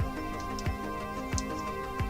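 Background music: steady held tones over a soft low beat that repeats about three times every two seconds.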